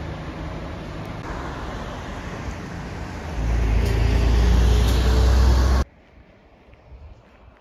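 Road traffic on a town street: cars passing steadily, with a louder low rumble from about three and a half seconds in. The sound cuts off suddenly just before six seconds in, leaving a much quieter street with a few faint ticks.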